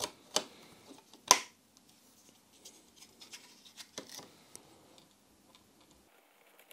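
Hard plastic clicks as the black plastic case of a Gauge.S display module is pressed shut by hand: three sharp clicks in the first second and a half, the loudest about a second in. These are followed by lighter taps and rustles as the module is handled and set onto the instrument cluster's circuit board.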